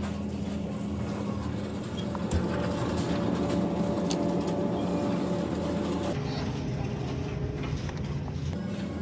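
Steady mechanical hum of a supermarket's glass-door refrigerated display cases, with one knock about two and a half seconds in.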